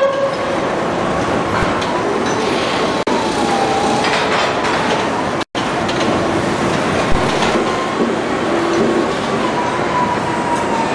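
Steady machinery din of a car assembly plant floor, with a faint whine that wavers up and down in pitch and a few light knocks. The sound cuts out for an instant about halfway through.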